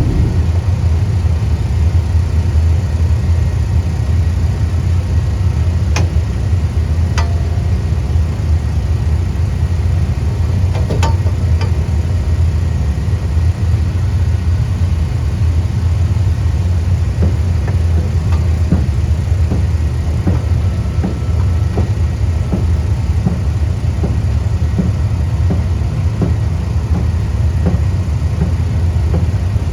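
Hammer blows on a dirt race car's sheet-metal door as it is beaten back into shape: a few scattered knocks, then a run of strikes about once a second in the second half. A steady low engine drone runs underneath throughout and is the loudest sound.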